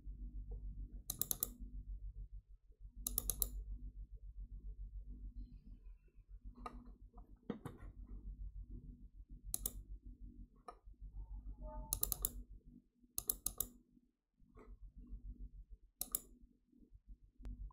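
Computer mouse clicking: several sharp clicks, many in quick pairs like double-clicks, over a low steady hum.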